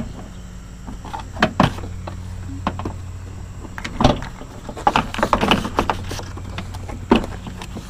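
Plastic liftgate trim panel being pushed into place by hand: a scatter of sharp knocks, clicks and rustles as its top hooks and clips seat, with a cluster about five seconds in, over a steady low hum.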